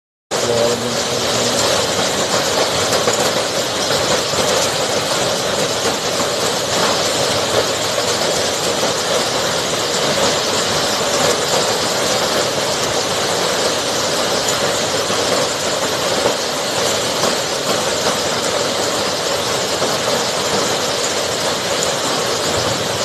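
Hailstorm with heavy rain and strong wind: a loud, steady rushing din that starts abruptly just after the beginning.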